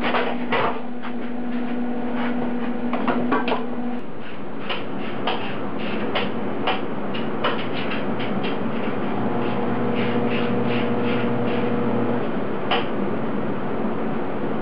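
TIG welder tack-welding stainless steel manifold pipe: a steady hiss and hum, with many short sharp clicks at irregular intervals.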